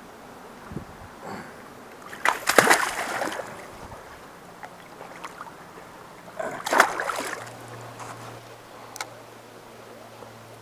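Water splashing close to the microphone in two loud bursts, about two seconds in and again near seven seconds, with a short click near nine seconds, over the steady rush of a flowing river.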